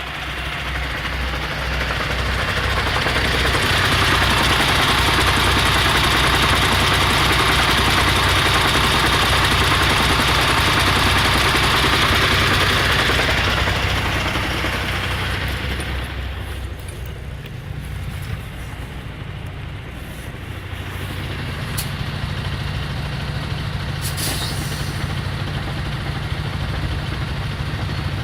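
MAN TGA truck idling with a knock from its gearbox, which goes away when the clutch is pressed; the owner is unsure whether this is normal. The noise grows quieter a little past halfway, then picks up again.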